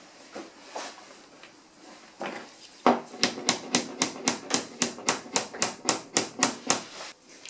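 Rapid, even series of sharp strokes on a leaded stained-glass panel, about five a second, starting about three seconds in and stopping shortly before the end; softer handling noises come before it.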